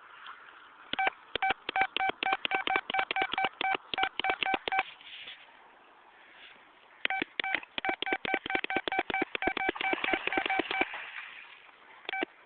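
Rapid short squeaks, all on the same pitch, in two runs of about four seconds each, then two more near the end.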